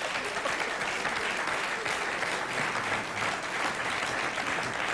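Studio audience applauding, a steady dense clapping that holds at an even level throughout.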